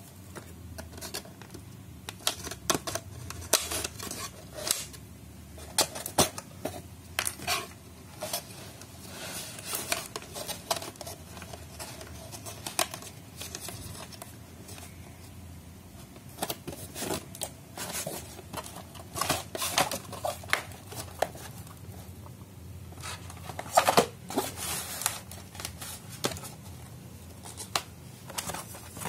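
Hands handling a cardboard toy box and its plastic twist-lock fasteners: irregular clicks, taps and scrapes, with a cluster of louder clicks about 24 seconds in.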